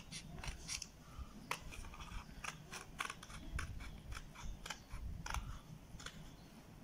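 Scissors snipping through thin white card in a series of short cuts, about three a second, working around a curved outline.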